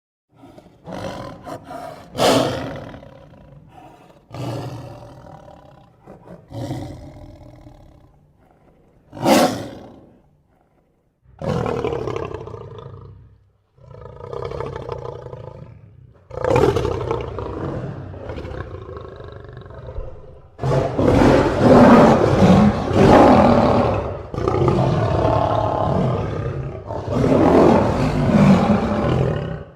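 Lion roaring and growling: a string of separate roars a second or two apart, then from about halfway on, longer and louder roars that run into one another.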